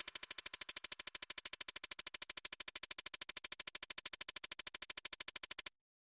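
Electronic background music reduced to a rapid, even pulsing, about twelve pulses a second and brightest in a high hiss, that cuts off abruptly near the end.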